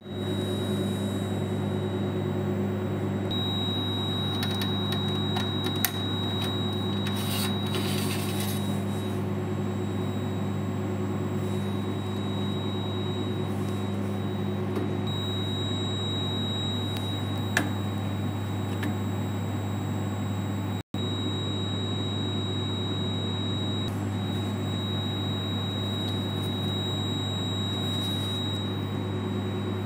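Steady machine hum with a faint high-pitched whine over it, and a few light clicks as a metal hard-drive caddy is handled.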